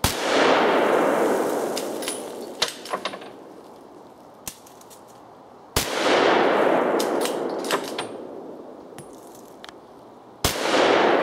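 Three rifle shots from a Browning X-Bolt bolt-action in .30-06, about five seconds apart, each with a long echo rolling off through the woods. Short sharp clicks sound between shots as the bolt is worked.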